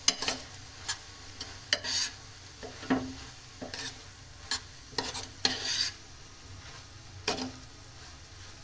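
A spoon stirring and mixing oats into a thick tomato-masala mixture in a pressure cooker pot, scraping and clicking irregularly against the metal; the strokes thin out after about six seconds.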